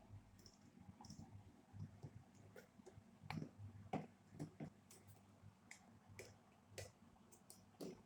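Faint, irregular clicks and light taps, about a dozen scattered through, over a low steady hum.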